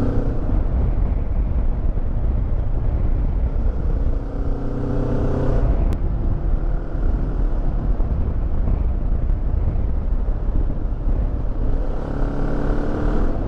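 QJMotor motorcycle engine running under way, heard over a steady rush of road and wind noise, its note climbing around four seconds in and again near the end.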